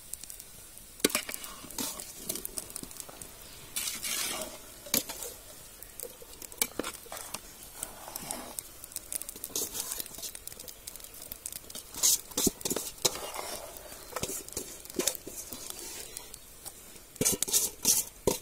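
A steel spatula scraping and clinking against a large metal cooking pot as boiled noodles are stirred and tossed into a fried egg and onion mixture. The strokes come in irregular bursts, busiest about four seconds in, around twelve seconds and near the end.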